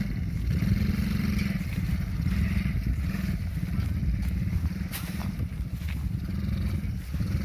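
Small 50cc engine of a children's quad bike running with a steady low throb.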